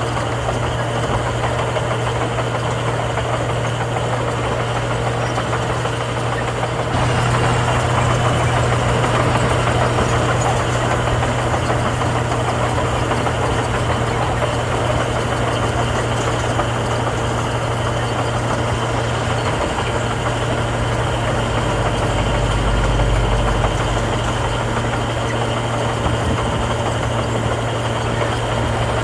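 Diesel engine of heavy earthmoving machinery running steadily, getting louder about seven seconds in, with a deeper rumble added for a few seconds near the end.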